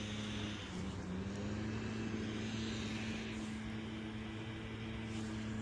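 Steady engine hum with a low drone. Its pitch dips slightly and recovers about half a second in.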